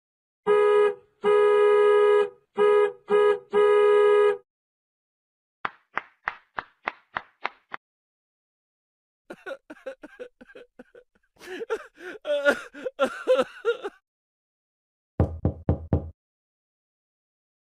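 A string of edited-in cartoon-style sound effects separated by dead silence: five horn-like honks in the first few seconds, then a quick run of about eight taps, a busy jumble of mixed sounds, and a short low buzz with clicks near the end.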